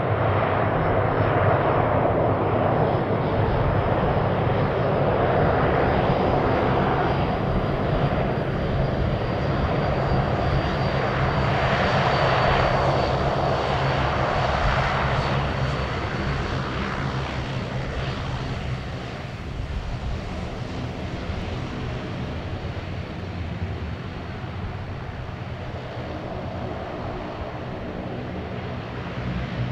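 Bombardier Dash 8 Q400 turboprops running while the aircraft taxis: a steady propeller hum with a thin, high turbine whine over it. It gets somewhat quieter a little past halfway through.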